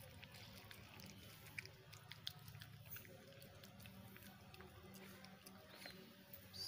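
Faint, irregular small clicks and smacks of a puppy eating from a steel bowl, over a low steady hum; near silence otherwise.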